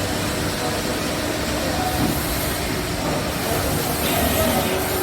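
CNC lathe running, a steady mechanical hum with machine noise.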